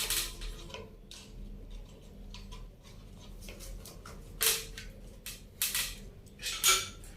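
Metal parts of a ceiling fan clinking and knocking as it is reassembled: scattered sharp clinks, the loudest about four and a half seconds in and again near the end.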